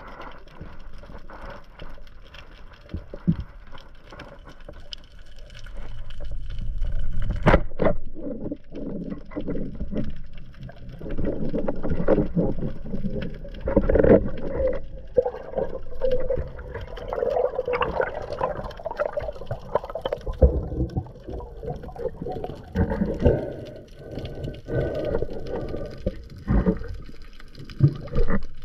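Underwater sound around a freediving spearfisher: water moving and gurgling over the camera with muffled knocks. There is one sharp click about seven and a half seconds in, and the water noise grows louder in the middle.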